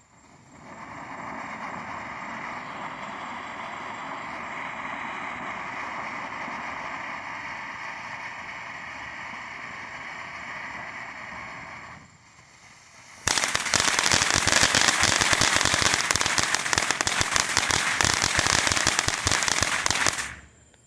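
Enigma fountain firework from TNT Fireworks, burning with a steady hiss for about twelve seconds. After a brief lull it breaks into loud, dense crackling, its listed crackle effect, for about seven seconds, then cuts off.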